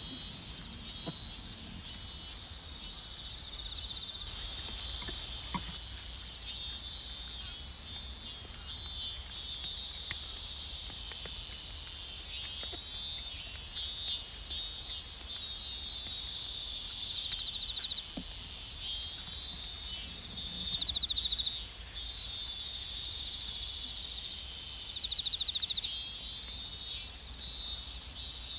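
Field insects such as crickets chirping and trilling in overlapping pulses, with a louder buzzing trill twice in the second half.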